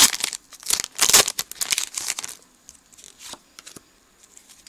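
Foil wrapper of a Pokémon Next Destinies booster pack crinkling and tearing as it is ripped open, in quick loud bursts over the first two seconds, then only faint rustling.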